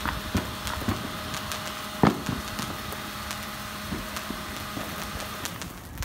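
Two JMAZ Firestorm F3 cold spark machines firing: a steady fizzing hiss with crackles and a faint steady hum. A few thumps, the loudest about two seconds in.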